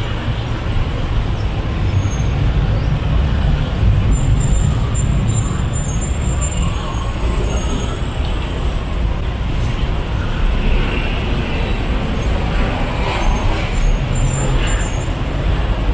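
Steady road traffic noise from cars and motorbikes on a busy city street, a continuous low rumble with no single vehicle standing out.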